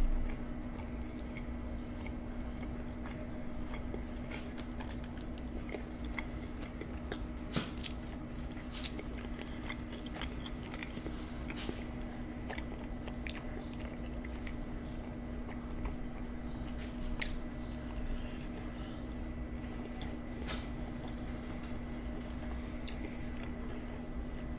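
Close-miked chewing and mouth sounds of a person eating deep-dish supreme pizza, with scattered sharp clicks and short crunches. A steady low hum runs underneath.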